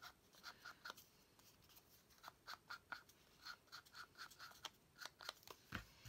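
Faint, quick taps and scrapes of a small Distress Oxide ink pad dabbed and rubbed along the edges of a paper sleeve, a few strokes a second with a short pause about a second in, and a soft thump near the end.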